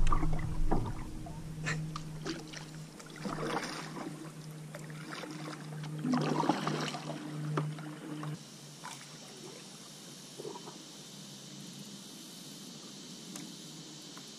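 Paddle strokes dipping and splashing in shallow water from a paddleboard, four or five over the first half, over a low steady hum. About eight seconds in the hum cuts off, leaving a quieter steady high hiss with a few faint drips.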